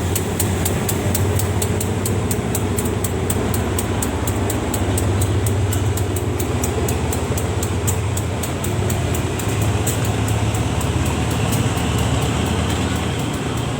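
Diesel train running at a station: a steady low engine rumble with rapid, even clicking on top.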